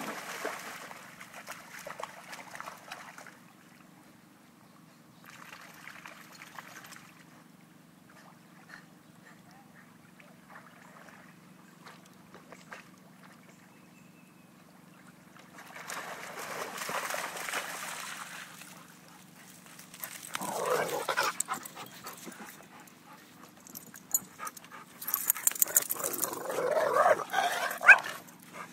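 Two dogs splashing through shallow river water in bursts. From about two-thirds of the way in, louder dog whines and snuffles come as the dogs meet nose to nose.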